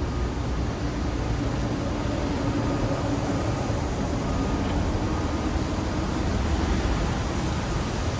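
Steady city street ambience: a continuous low traffic rumble with a faint wavering hum.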